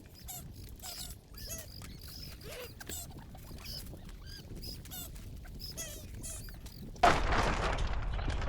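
Young chickens peeping: many short, high chirps in quick succession. About seven seconds in, a sudden loud rush of noise takes over.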